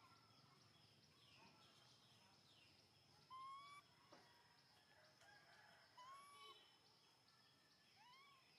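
Quiet outdoor ambience with a steady high whine, broken by three short arching animal calls: one about a third of the way in, one past the middle, and one near the end.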